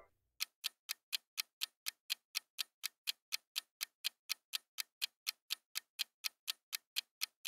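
Clock-ticking countdown timer sound effect: even, quiet ticks at about four a second, starting about half a second in.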